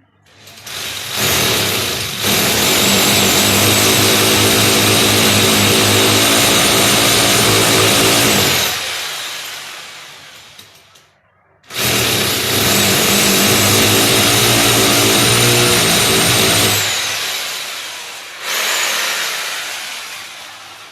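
Electric drill boring through a wall: two long runs of about eight and five seconds, each ending as the motor winds down with a falling whine, then a short third burst near the end.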